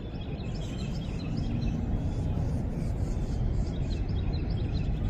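Distant airplane's steady low rumble, which sounds like a takeoff, slowly growing a little louder. Small birds chirp over it throughout.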